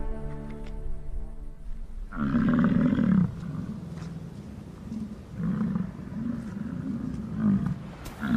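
Soft music fades, then American bison bulls bellow in the rut: one long, deep bellow about two seconds in, followed by a run of shorter pulsing bellows, about two a second.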